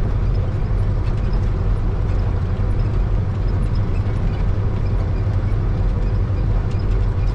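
Truck's diesel engine running with a steady low drone, heard from inside the cab.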